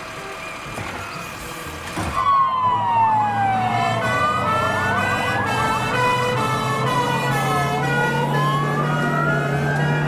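A truck engine runs for about two seconds. Then an airport crash-tender fire truck's sirens start: one siren wails, sliding slowly up and down, while a second switches back and forth between two tones, over the steady hum of its engine.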